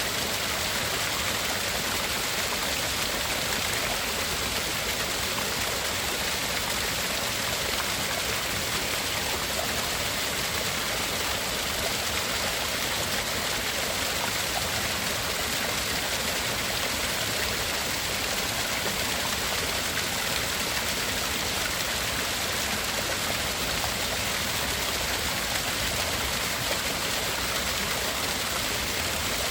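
Steady, unbroken rushing hiss like a stream or waterfall, played as a tinnitus-masking sound. It is strongest in the upper-middle range and has two narrow slices cut out high in the hiss.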